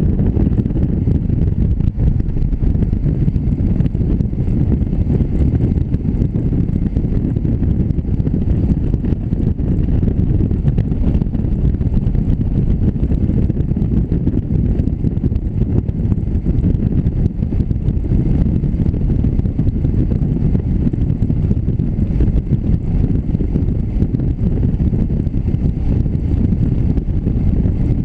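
Wind buffeting the microphone of a camera mounted on a moving motorcycle, over the bike's engine and road noise: a loud, even low rumble that stays the same throughout.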